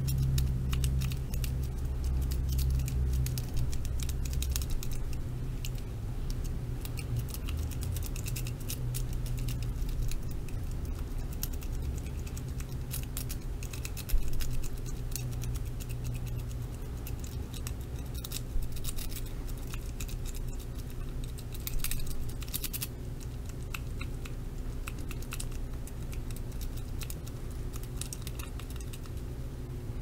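Collar-stay rake scraping back and forth over the pins of a padlock's Corbin core, with a collar-stay tension wrench holding tension. It makes rapid, irregular light clicking and scratching, with a few sharper clicks, over a low steady hum.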